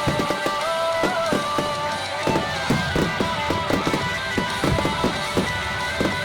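Fireworks going off in rapid succession, many short bangs a second, over music with a held, slowly moving melody.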